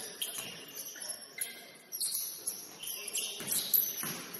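Basketball shoes squeaking on the court floor in high, chirp-like squeals, with several sharp thumps from play on the court.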